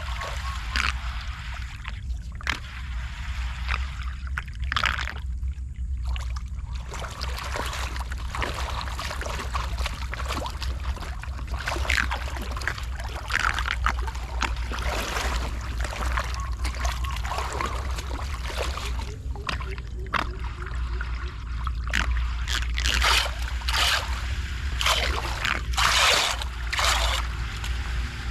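Floodwater splashing and sloshing, with repeated short splashes over a continuous rush of water and a steady low rumble underneath.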